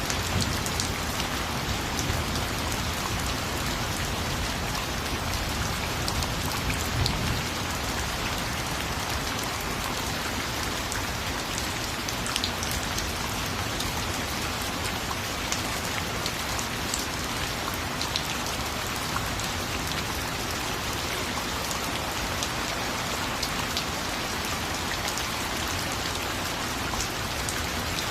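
Steady rain falling on a surface, with scattered sharp drop ticks over an even hiss.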